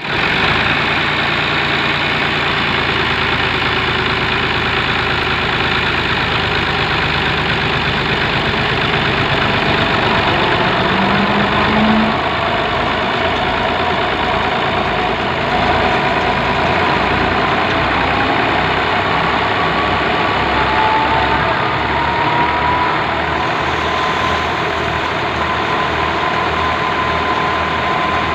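Farm tractor's diesel engine running steadily under load, driving a crop thresher, with the machine's rumble throughout. A steady whine comes in about two-thirds of the way through and holds to the end.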